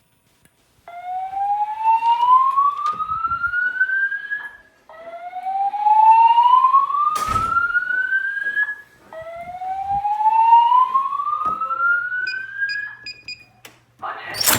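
EST-3 voice-evacuation fire alarm speakers sounding the evacuation tone: three slow rising whoops in a row, each sweeping up in pitch for about four seconds. Four short high beeps come near the end, and a sharp knock lands at the very end.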